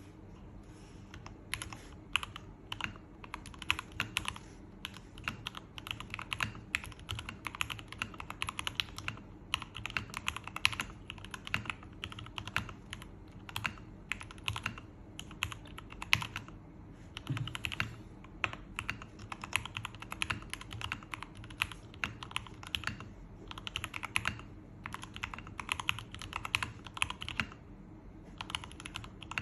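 Typing on an Akko ACR59 HHKB-layout mechanical keyboard: a fast run of key clicks that starts about a second and a half in, with a few brief pauses.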